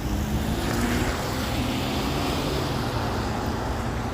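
A vehicle engine running steadily with a low rumble, mixed with storm wind noise.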